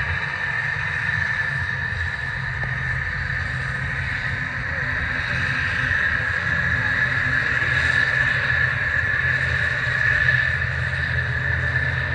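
Turboprop airliner engines running steadily nearby: a low propeller drone under a steady high-pitched whine, swelling slightly partway through.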